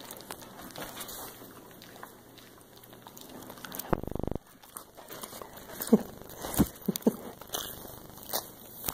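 A dog snuffling and licking right at the phone's microphone, with wet clicking mouth sounds. A muffled rubbing burst comes about four seconds in, and a few short pitched squeaks follow a little later.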